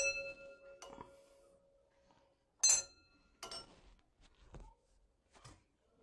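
A stemmed glass clinking twice, at the start and a little under three seconds in, each strike ringing on with a clear tone: the first for about a second and a half, the second for about a second. Lighter taps and knocks of glassware fall in between.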